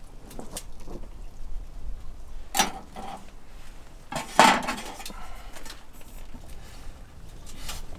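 Metal tableware clinking: a few separate knocks and clinks against a stainless steel plate, the loudest about four and a half seconds in with a brief ring.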